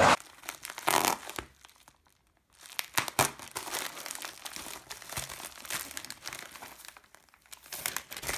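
Packaging crinkling and rustling in short, uneven bursts with small clicks as a parcel is unpacked by hand, with a pause about two seconds in and another near the end.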